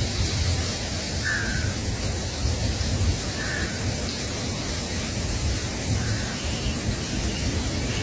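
Steady rushing noise with a gusty low rumble, like wind on the microphone, and a short animal call about every two to three seconds.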